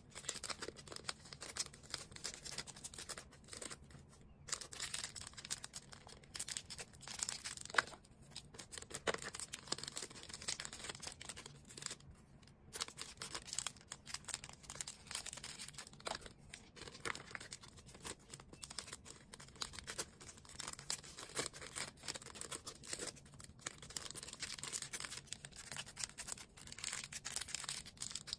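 Hands packing an order: continuous crinkling and rustling of plastic and paper packaging, with many small clicks and taps of handling.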